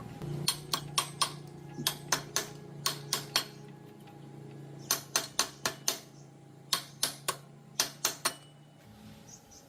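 Sharp metallic taps on metal parts in quick runs of three to six, over a steady low hum that stops near the end.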